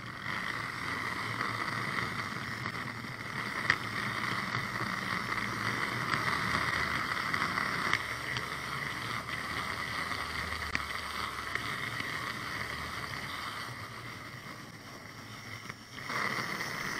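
An 00 gauge model Stroudley Terrier tank locomotive running along the track with a train of wagons: the steady whirring hiss of its small electric motor and wheels, with a few faint clicks. The sound eases off near the end, then picks up again.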